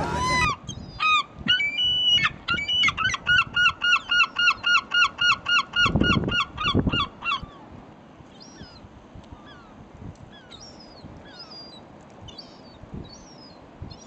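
A gull calling a long run of loud, repeated yelping notes, about three a second, which stops about seven and a half seconds in. After that come only faint, short, high chirps.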